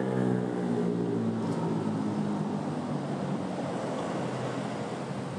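Motor vehicle engine running, its pitch falling over the first second or so, then holding at a steady hum.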